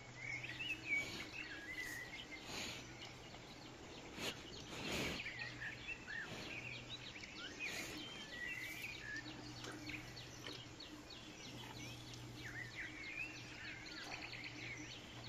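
Birds chirping and singing throughout over a steady low hum, with a couple of brief knocks about four to five seconds in.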